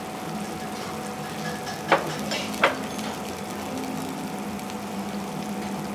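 Spoon clicking twice against a small ceramic bowl while eating, over a steady hissing background of restaurant noise with a faint hum.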